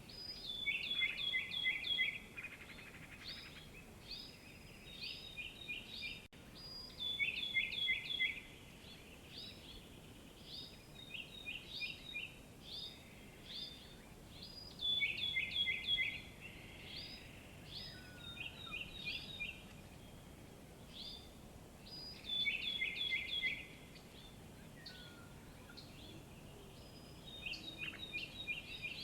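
Wild birds singing: one bird repeats a phrase of rapid, high, descending notes about every seven seconds, with scattered single chirps between phrases over a faint background hiss.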